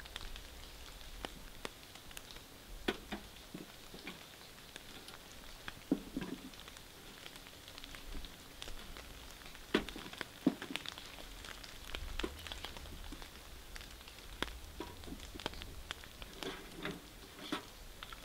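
Scattered raindrops tapping irregularly on a surface, a few heavier drops louder than the rest, over a faint steady hiss of rain.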